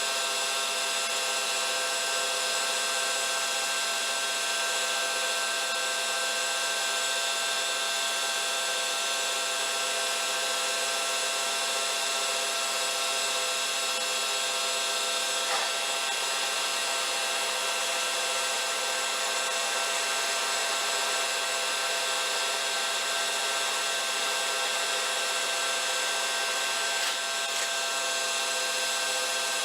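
A metalworking machine tool running steadily, cutting metal: a constant whir with several fixed whining tones over a hiss, broken only by a couple of faint ticks.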